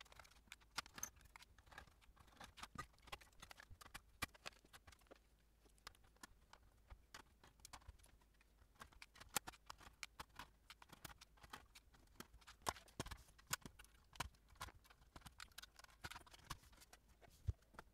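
Faint, scattered small clicks and taps from a screwdriver working screws out of a circuit board and from the board being handled in its metal chassis.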